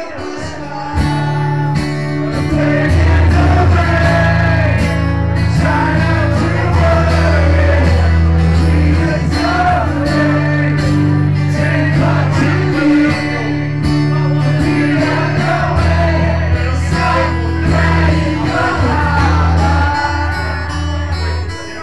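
Live acoustic guitar duo playing a song with singing, amplified through the PA. The music gets louder about a second in.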